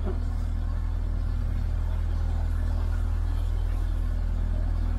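Narrowboat engine running steadily under way: an even low rumble with a fast, regular pulse.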